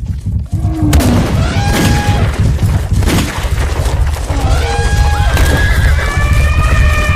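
Elephant stampede: a continuous deep rumble of pounding feet that starts about a second in, with elephants trumpeting several times over it.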